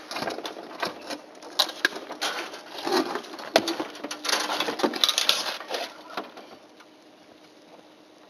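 Knocks, clicks and scraping as a solar panel's metal frame is handled and set down on aluminium roof mounting rails. Busy and irregular for about the first six seconds, then it quietens.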